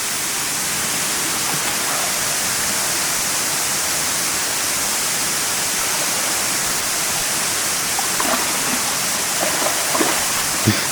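Kuang Si waterfall's rushing water: a steady, even hiss, with a few faint short sounds near the end.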